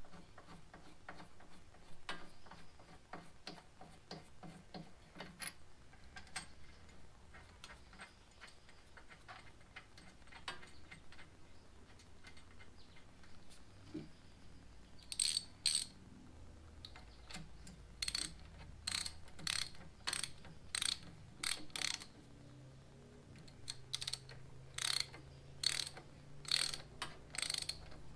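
Hand socket ratchet clicking as the hydraulic belly pump's mounting bolts are run in and tightened. Quick light clicking in the first few seconds, then from about halfway a run of louder ratchet strokes, a little over one a second.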